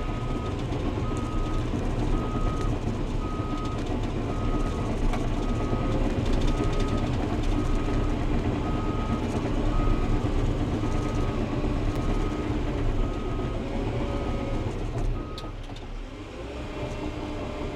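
Bulldozer's diesel engine running under load while reversing, its backup alarm beeping about once a second. The beeping stops near the end as the machine stops backing up.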